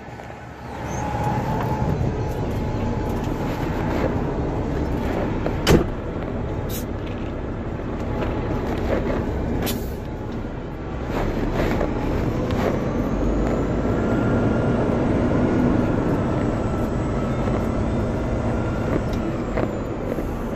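Heavy-duty tow truck's diesel engine running, heard from inside the cab, with rattles and knocks and one sharp knock about six seconds in. A faint whine rises and falls in the second half.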